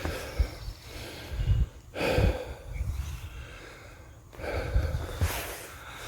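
A man breathing hard while walking, three heavy breaths roughly two and a half seconds apart, with a few soft low thumps between them.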